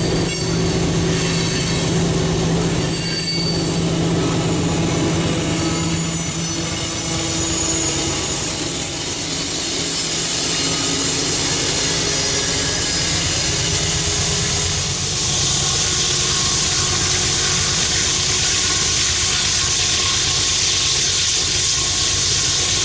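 Freight train rolling past at close range: steady wheel-on-rail noise from loaded tank cars, with squealing wheel flanges. About halfway through, a Canadian Pacific diesel locomotive at the rear of the train passes and rolls away, and a brighter high hiss comes in a few seconds later.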